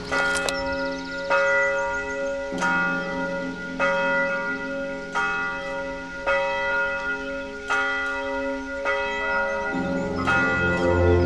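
A church bell tolls steadily, about one stroke every second and a quarter, each stroke ringing on under the next. A low sustained tone underneath shifts pitch a few times.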